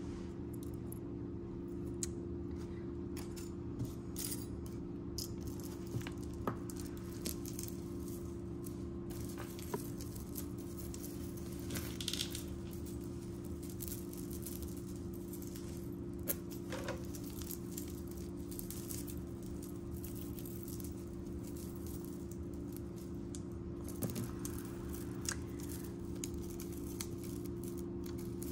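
Small metal jewelry pieces (chains, cufflinks, tie bars) clinking and sliding as they are picked up and set down on a cloth: scattered short clicks at irregular intervals, over a steady low hum.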